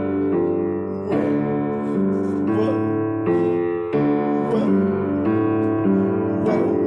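Keyboard music: sustained piano-like chords, changing roughly every second.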